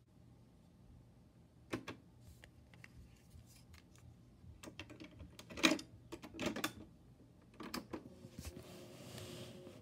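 Plastic clicks and clacks of a cassette being loaded into a Sanyo boombox's tape deck, the loudest clack a little past halfway, then a key pressed down near the end. Tape hiss with a faint steady motor hum follows as the deck starts playing.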